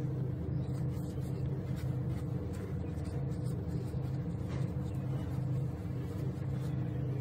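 A steady low mechanical hum, like a motor or engine running, with a few faint scratchy strokes.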